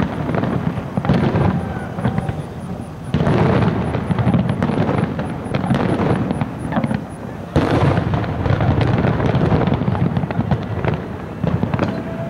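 Fireworks display: aerial shells bursting in quick succession, the bangs running into one another with echoes. The barrage turns suddenly denser and louder about three seconds in and again a few seconds later.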